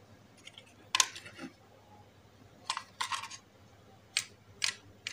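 A handful of sharp clicks and light taps from handling small parts, as wires are clipped onto an old bicycle dynamo and a plastic LED lamp is picked up; the loudest click comes about a second in.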